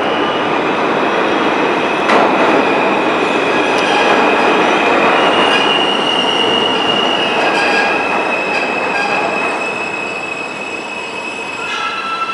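R160A-2 subway train running into an underground station: steady wheel-and-rail noise with a high, thin wheel squeal over it. A set of high, steady whining tones comes in near the end.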